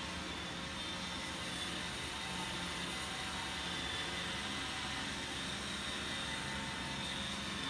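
Roomba robot vacuum and electric pedestal fans running together: a steady whir with a faint high tone.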